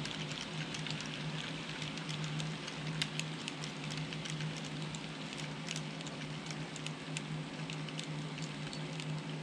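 Model coal train's wheels clicking and rattling irregularly over the track as loaded hopper cars roll past, over a steady low hum.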